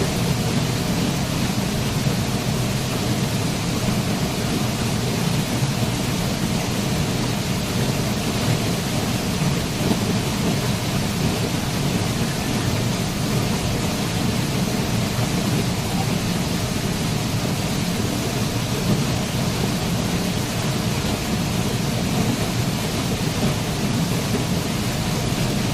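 Waterfall: a steady, unbroken rush of falling water, heaviest in the low range, with no separate splashes or breaks.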